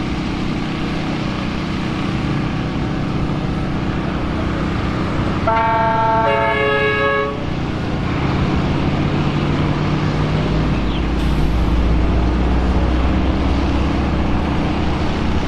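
A vehicle horn honks for about two seconds, changing pitch partway through, over the steady running of idling engines in stopped traffic.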